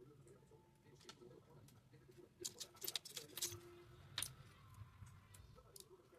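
Faint, sharp clicks and taps of small hand tools working on a smartphone during a back-glass repair: a quick cluster about two and a half to three and a half seconds in, then one more just after four seconds, over a low steady hum.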